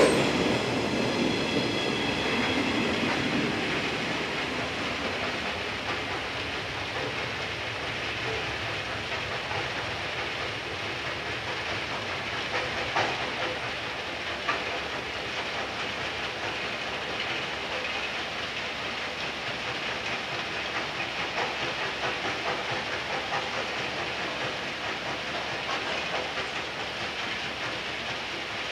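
Electric multiple unit of Okayama depot's set A14 pulling out and moving away. Its motor hum fades in the first few seconds, leaving a steady hiss of train noise with wheel clicks over the rail joints, two sharp ones about halfway through.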